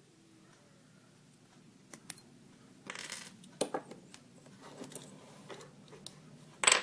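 Small metal lockpicking tools and lock parts clinking and tapping on a hard surface: scattered light clicks, a brief scrape, and a sharper clink near the end.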